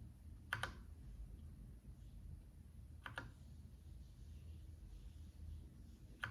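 Keychron K8 mechanical keyboard: a single key is pressed and released three times, about three seconds apart, each press a quick double click.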